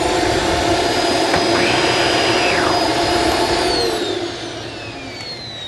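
Dyson DC17 upright vacuum cleaner running on test after a power switch replacement, its motor giving a steady whine. About four seconds in, the level drops and the whine falls in pitch as the motor winds down.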